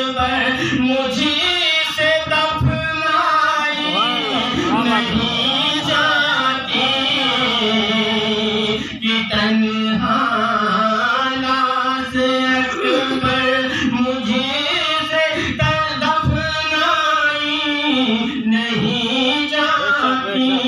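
A man singing a naat, a devotional Islamic song praising the Prophet, into a microphone, with long held, wavering, ornamented notes and a brief break between lines about nine seconds in.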